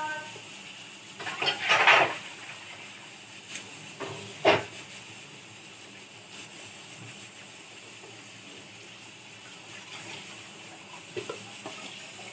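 Hands working a ball of dough in a steel bowl: a short scraping burst about two seconds in and a single sharp knock against the bowl a little after four seconds, with a few faint clicks near the end over a steady background hiss.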